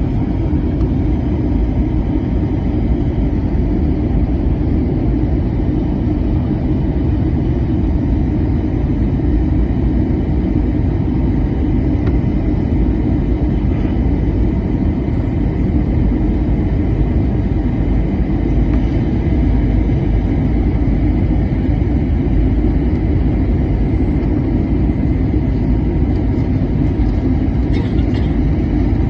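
Steady low roar inside the cabin of an Airbus A321-200 on final approach: engine and rushing-air noise heard from a window seat, with a faint steady whine above it.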